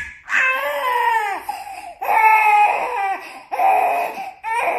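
A six-month-old infant crying in about four drawn-out wails, each about a second long, as her cochlear implants are switched on and she hears sound for the first time.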